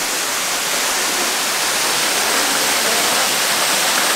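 Waterfall pouring into a rock pool: a steady rushing of falling water, a little louder after about a second.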